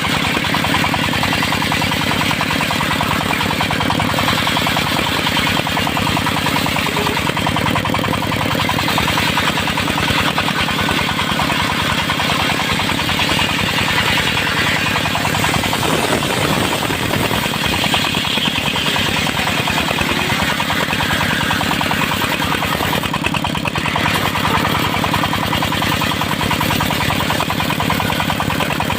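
Engine-driven circular sawmill running steadily, its engine beating fast and even, while it saws teak timber.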